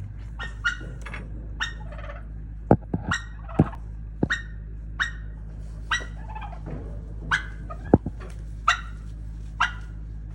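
A hen turkey calling over and over, about a dozen short yelps that each fall in pitch. Several sharp loud knocks come between the calls, and a steady low hum runs underneath.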